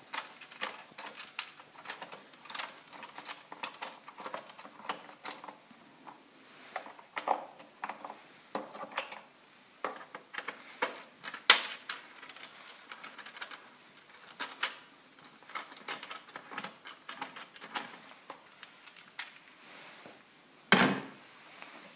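Irregular clicks and light knocks of a Torx driver turning bolts and tapping against a VW 1.4 BCA's plastic air filter box, with a sharp tap about halfway through and a heavier knock near the end.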